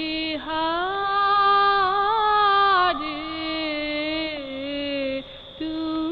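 A boy singing a devotional song in long held notes that slide from pitch to pitch, with a short pause about five seconds in.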